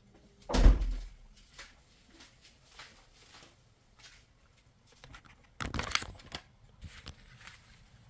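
Quiet after the engine has been switched off, broken by one heavy thump about half a second in, a few faint clicks, and a short cluster of knocks and rattles around six seconds in.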